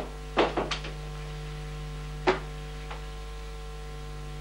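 Several short, sharp knocks: three in quick succession about half a second in, a louder one a little after two seconds, and a faint one soon after, over a steady background hum.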